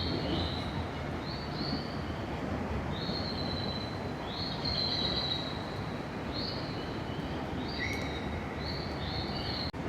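Birds calling over and over, short high chirps that often step down in pitch, about one a second, over a steady low background rush.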